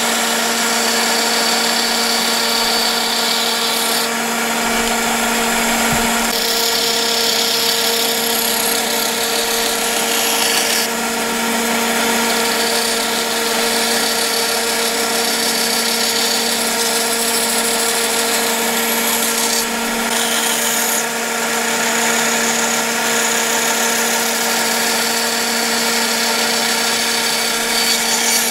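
Band saw running with a steady motor hum, its blade cutting through a thin wooden board. The hiss of the cut rises and falls several times as the board is fed and turned along the marked lines.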